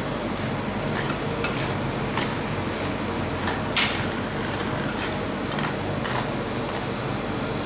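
Metal scraper scraping and tapping across a frozen cold plate as a thin layer of ice cream is spread, with short strokes every half second or so, the loudest about four seconds in. Under it runs a steady machine hum.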